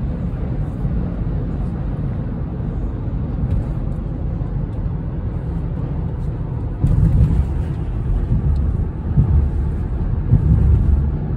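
Steady low road and engine rumble inside a car's cabin at highway speed, turning louder and more uneven from about seven seconds in.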